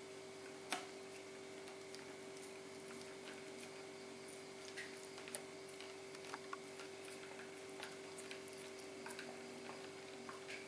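Siberian husky puppy gnawing a rawhide bone: irregular faint clicks of teeth on the rawhide, one louder click under a second in, over a steady hum.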